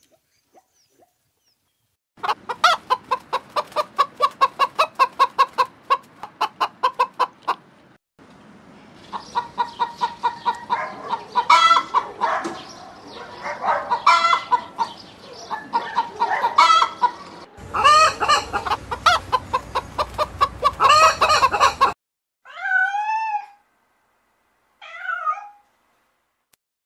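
A hen clucking in long runs of short, quick clucks, about three or four a second, broken by louder, drawn-out calls. Near the end a cat meows twice, each meow rising and then falling in pitch.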